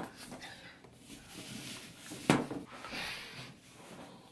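Handling noises as a whiteboard is set up on a table: scattered clicks and rubbing, with one sharp knock a little past two seconds in.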